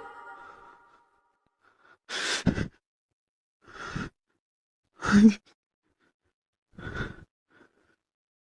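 Four short, breathy coughs spaced about a second and a half apart, the third the loudest, in a small room.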